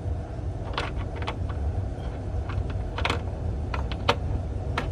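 Sharp metallic clicks of a wrench being fitted onto and knocked against the hex head of the scissor bolt on a Brunswick A-2 pinsetter, several at irregular intervals, over a steady low hum.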